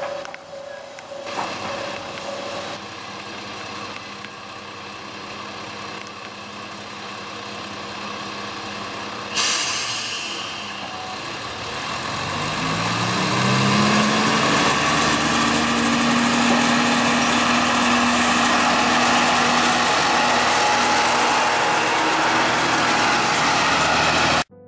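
Diesel railcar of the Kanto Railway Joso Line, single car 2404, running at a station platform. About nine seconds in there is a sudden sharp hiss of compressed air. Then the engine revs up with a rising pitch and holds a loud, steady note as the railcar pulls away.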